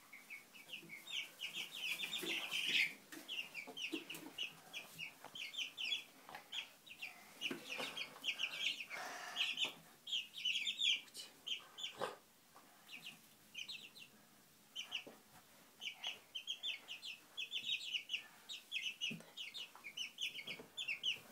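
Young chicks peeping: a rapid, steady run of short high-pitched peeps, several a second, with brief pauses. A single knock sounds about halfway through.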